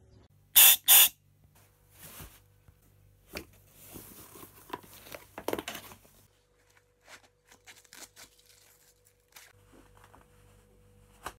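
Two short, loud hissing bursts about a second in, then scattered rustling, scraping and clicking of neoprene dive gear being pulled on: fins over drysuit boots and a hood.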